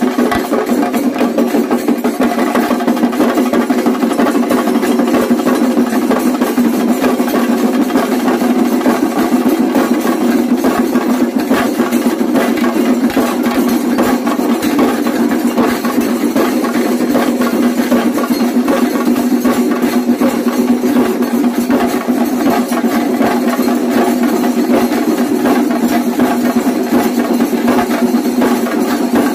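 Shinkarimelam ensemble of many chenda drums beaten with sticks in a loud, fast, unbroken roll.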